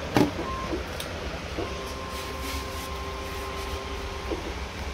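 Paint tinting machine running, with a click near the start and a steady whine for nearly three seconds from about a second and a half in.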